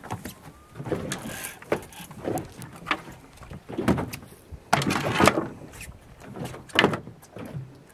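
Water slapping and knocking against a small boat's hull in an irregular series of short bursts, the loudest about five seconds in.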